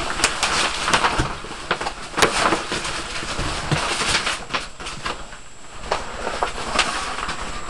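Handling noise from a curtain being put up: rustling and scraping with scattered sharp clicks and knocks.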